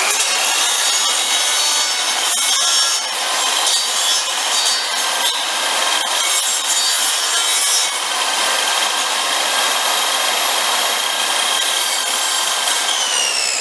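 Hyundai miter saw running, its spinning blade grinding across a wood block that is slid from side to side to smooth the bottom of a slot, with a steady motor whine. Near the end the whine falls in pitch as the blade spins down.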